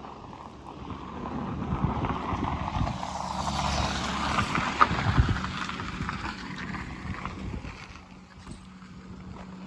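A motor vehicle driving past, its engine and tyre noise growing louder, peaking midway and fading away, with wind buffeting the microphone.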